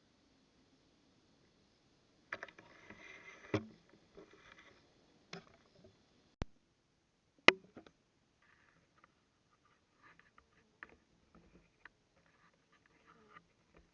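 Rustling and handling noise picked up by a night-vision camera's built-in microphone, broken by several sharp clicks and knocks; the loudest click comes about halfway through, followed by faint scattered rustles.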